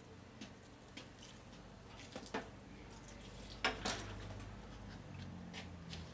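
Motorcycle pushed by hand with its engine off: a few faint clicks and two sharper knocks, about two and four seconds in, over a low steady hum.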